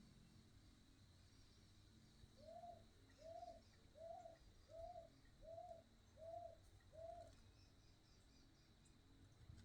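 A dove cooing faintly: a run of seven short, evenly spaced coos, each rising and falling, about four every three seconds, starting a couple of seconds in.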